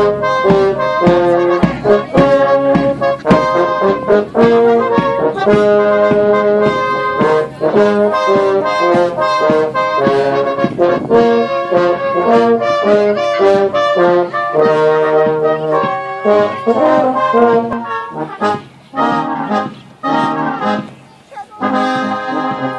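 Brass band music with sustained brass chords over a steady beat, growing patchier and quieter near the end.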